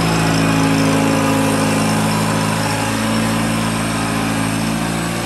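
Satoh S650G tractor's gasoline engine running steadily.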